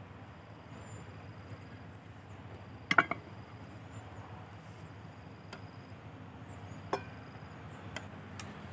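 Camp cookware clacking once sharply about three seconds in as a pot lid is handled, with a few lighter clicks later. Under it runs a faint, steady, high insect drone.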